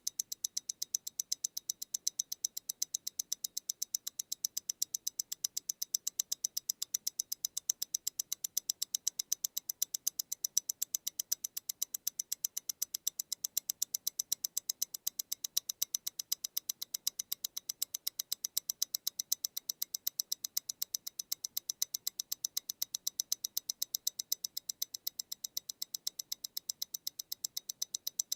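Close-up ticking of a MEMORIGIN Stellar tourbillon watch's mechanical movement beating at 28,800 vibrations per hour: fast, even, high-pitched ticks, about eight a second.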